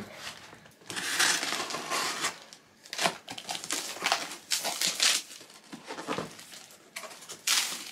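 Cardboard shipping boxes and plastic air-pillow packing rustling and scraping as boxes are handled and a small box's taped flaps are worked open: a longer rustle early, then a run of short scratchy crinkles.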